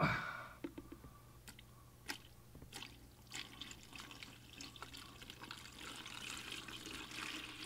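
Water poured from a bucket into the rear filter chamber of a small glass aquarium, filling the tank. It opens with a brief louder gush, then scattered drips, and from about halfway a steadier trickle builds as the water runs through the chamber and over a rock.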